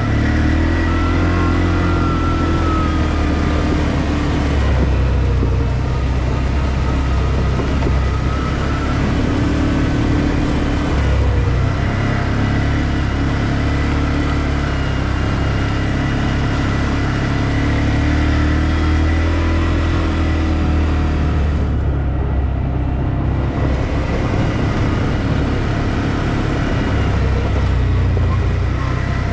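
ODES 650 ATV engine running under way, its note rising and falling as the throttle changes.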